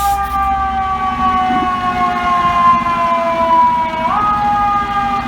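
Fire truck's mechanical siren winding down, its pitch sliding slowly lower, then revved back up in a quick rise about four seconds in. A low steady hum runs beneath.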